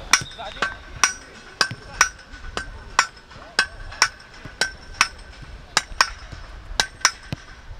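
Repeated sharp knocks with a metallic ring, about two a second and often in pairs, like hammer blows on metal.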